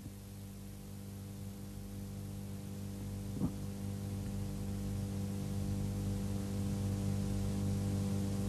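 A steady low hum made of several even tones, growing slowly louder.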